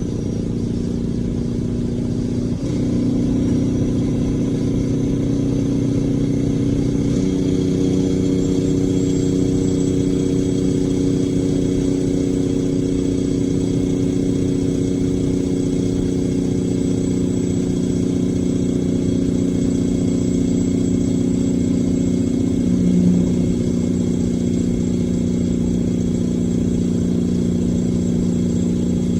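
Caterpillar C-12 diesel engine of a semi-truck running with a steady drone, its pitch stepping up about 3 seconds in and changing again about 7 seconds in, with a brief swell around 23 seconds.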